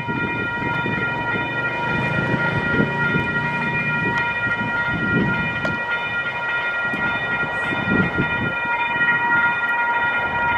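Level-crossing warning bells, Western-Cullen-Hayes electronic bells, ringing steadily as a continuous ringing tone, with an uneven low rumble underneath.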